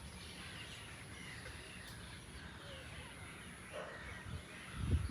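Several small birds chirping and calling over a faint steady high hiss, with low rumbling and a louder dull bump near the end.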